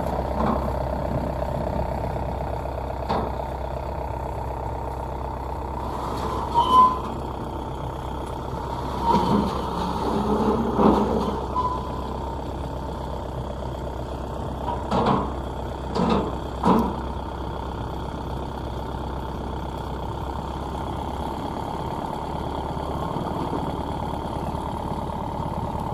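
Combine harvester engines running steadily, a constant low drone, with a few brief louder sounds around the middle.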